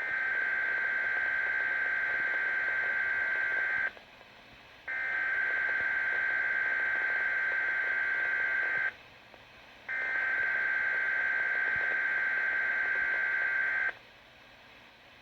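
Weather radio test alert's SAME digital header, heard through a weather radio receiver: three bursts of buzzing data tones, each about four seconds long and a second apart.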